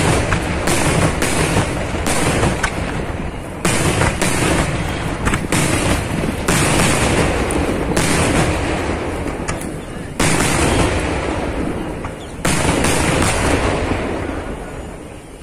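Kerala temple fireworks (vedikkettu): a dense, continuous barrage of bangs and cracks from bursting aerial shells. Fresh, louder volleys break in about four, ten and twelve seconds in, and the barrage thins out near the end.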